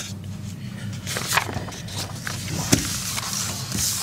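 Sheets of paper being handled and shuffled on a desk, with light rustles and small knocks over a steady low hum.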